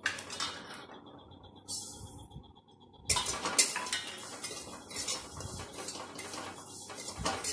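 Metal spatula stirring and scraping whole spices (black cumin) being dry-roasted in a metal pan, with clinks of metal on metal; the scraping becomes dense and steady about three seconds in.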